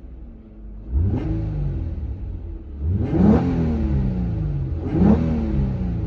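Infiniti G35's 3.5-litre V6 on its stock exhaust, blipped three times from idle: each rev rises sharply and falls straight back to a low rumble.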